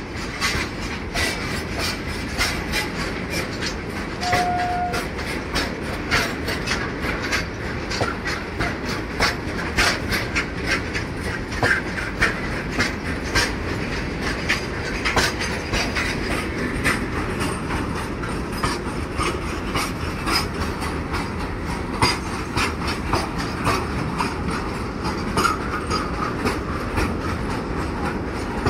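Long freight train of tank wagons passing close at speed: a steady rumble with rapid, irregular clickety-clack of wheels over the rail joints. A brief high tone sounds about four seconds in.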